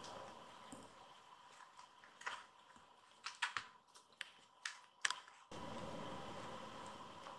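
A kitten's paws and mouth batting at a rubber-band toy on a tatami mat: faint scattered light taps and clicks, a quick cluster a little after three seconds and a sharper click about five seconds in, over a faint steady hiss.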